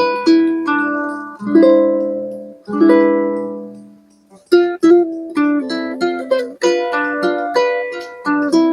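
Solo plucked-string instrumental: ringing chords that decay, a short pause about four seconds in, then quicker picked notes.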